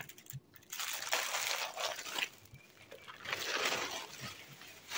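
Plastic and cellophane packaging bags rustling and crinkling as they are handled, twice, each time for a second or so.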